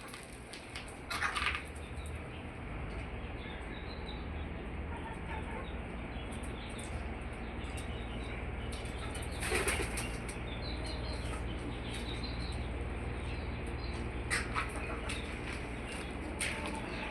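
Hens flapping their wings in a few short bursts, the loudest about halfway through, over a steady background noise.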